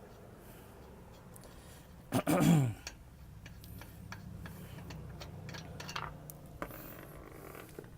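Lug nuts being worked off a pickup's rear wheel by hand: scattered light metal clicks, with one loud short sound about two seconds in that falls steeply in pitch.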